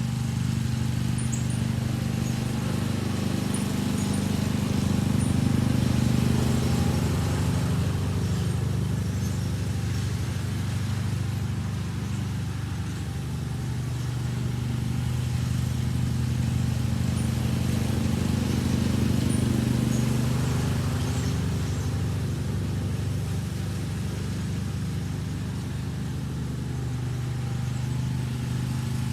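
John Deere riding lawn mower engine running steadily while mowing. It grows a little louder and then softer twice.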